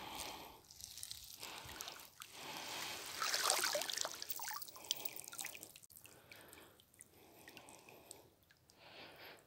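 Water dripping and trickling off a cast net as it is hauled up out of the water, loudest about three seconds in as the net comes clear of the surface.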